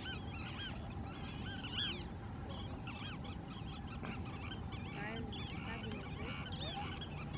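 A chorus of many birds calling, with short rising-and-falling calls overlapping several times a second over a steady low background noise.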